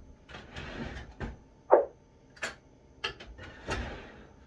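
Kitchen handling sounds while mayonnaise goes into a macaroni salad: a utensil scraping and knocking against a jar or bowl several times, with one short loud squeak just under two seconds in.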